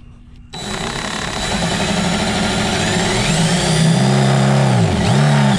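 Cordless impact driver with a drill adapter spinning a 31/64 drill bit through the molded plastic wall of a gas can. The motor whine starts about half a second in, holds steady and dips briefly in pitch near the end.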